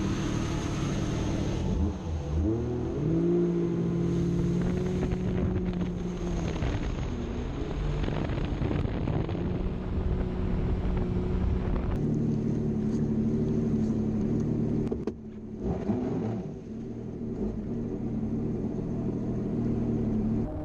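Jet ski engine running under way with the rush of water, its pitch rising and falling with the throttle; about fifteen seconds in it eases off briefly, then picks up again.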